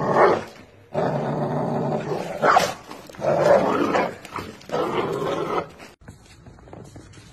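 American bully dogs growling in rough, repeated bouts, about five in the first six seconds, as they wrestle and mouth each other in play.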